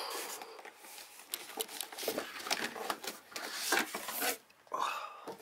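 Cardboard packaging rustling and scraping as a boxed film set is pulled up out of its cardboard shipping box, with irregular short scrapes and taps throughout.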